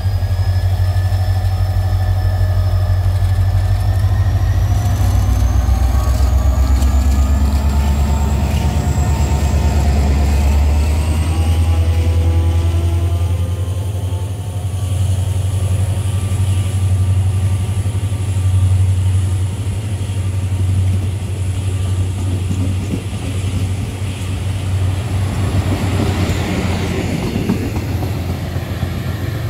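KORAIL 7400-class diesel locomotive hauling a Mugunghwa passenger train as it pulls away: a deep engine rumble with a whine that rises in pitch as it gathers speed, then the carriages' wheels rolling past on the rails.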